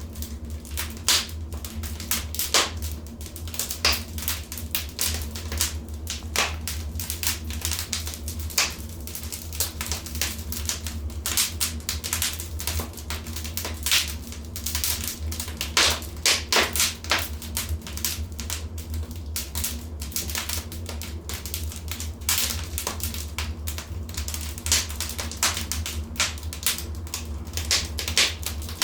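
Wood fire crackling: dense, irregular snaps and pops with occasional louder cracks, over a steady low rumble.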